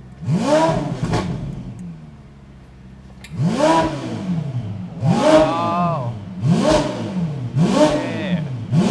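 Ferrari F8 Tributo's twin-turbocharged 3.9 L V8, through a titanium iPE exhaust, being blipped five times. Each rev rises and falls in pitch: one just after the start, then four more, a bit over a second apart, from about three seconds in.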